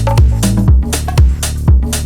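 Background music with a steady beat: a low kick drum about twice a second, with a bass line and sharp percussion between the kicks.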